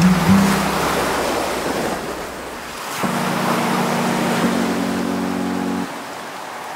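Ocean surf: small waves breaking and washing up on a sandy beach, a steady rushing wash that swells and eases. Underneath it, low held notes of soft background music drop out for a couple of seconds and come back.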